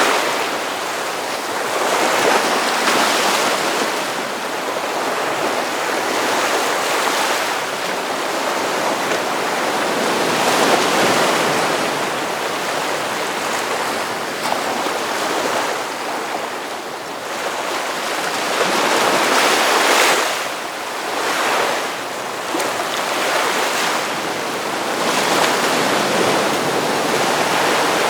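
Ocean surf washing onto a sandy beach: a continuous wash of breaking waves, swelling louder as each wave breaks every several seconds.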